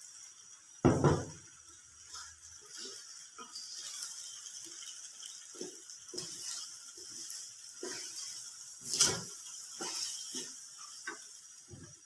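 Wooden spatula knocking and scraping against a steel wok while stirring penne pasta, in irregular clunks with two louder knocks, about a second in and about nine seconds in.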